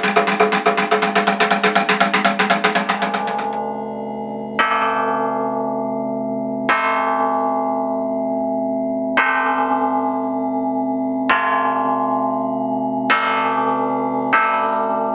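A wooden fish (mokeo) drummed with two sticks in a fast, even roll of about eight strokes a second, which stops about three and a half seconds in. Then a cloud-shaped metal gong plate (unpan) is struck with a mallet about every two seconds, the strikes coming closer together near the end, each leaving a long ringing tone that runs into the next.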